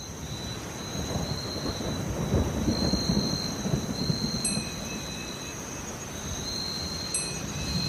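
Thunderstorm sound effect: thunder rumbling over steady rain, the rumble swelling a couple of seconds in, with two short high pings about four and a half and seven seconds in.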